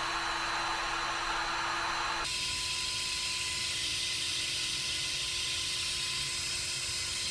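Electric heat gun blowing steadily, with a low motor hum under the rush of air, heating heat-shrink tubing on a wire terminal. About two seconds in its sound turns abruptly higher and hissier, and it stops suddenly near the end.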